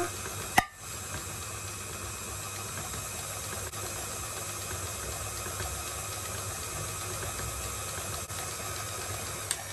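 A single sharp click about half a second in as the ring-pull tab of a metal tin snaps off, over a steady hiss and hum of background noise.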